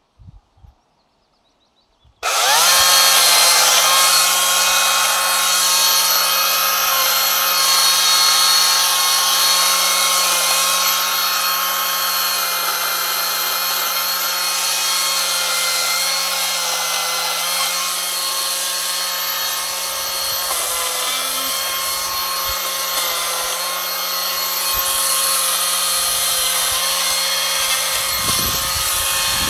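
Ryobi cordless chainsaw spinning up with a quick rising whine about two seconds in, then running steadily as it cuts the branches off a felled spruce trunk.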